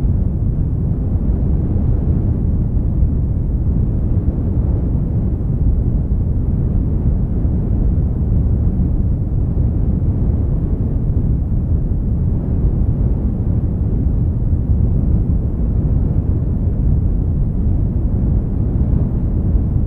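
Steady low rumbling noise, without pitch or rhythm.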